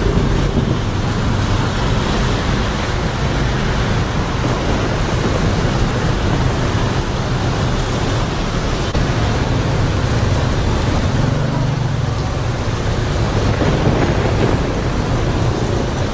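Heavy rain falling on a flooded city street while cars and motorbikes drive through the standing water, engines running and tyres splashing. A steady, unbroken rush with a low rumble of traffic underneath.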